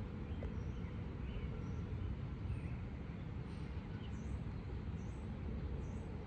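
Outdoor ambience: a steady low rumble, with small birds giving short, faint chirps every second or so.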